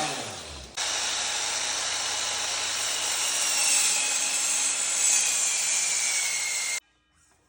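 Power saw cutting through wood: a steady, loud cutting noise that starts suddenly just under a second in and cuts off abruptly near the end.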